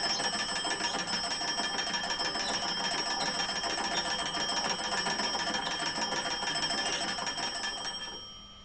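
The twin brass bells of an antique wooden wall telephone ringing continuously in a fast rattle. The ringing cuts off about eight seconds in.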